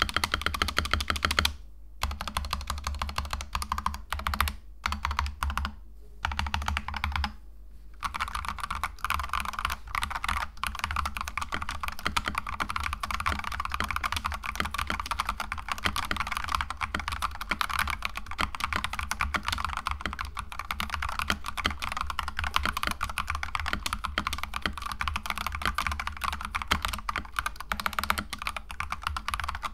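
Fast typing on an Akko 5108B Plus mechanical keyboard with Akko CS Crystal linear switches, a screwed-in metal plate and a foam-filled case: a dense, steady run of keystrokes with a few short pauses in the first eight seconds. The plate-mounted stabilizers make little rattle.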